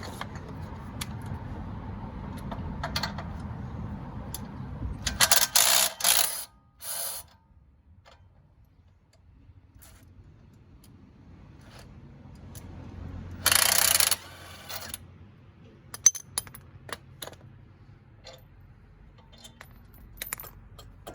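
Impact gun spinning off the tight lower nut of a Jeep sway bar end link, run in short loud bursts: two about five to seven seconds in, and one more about eight seconds later. Between the bursts come metallic clinks and taps of tools and loose parts.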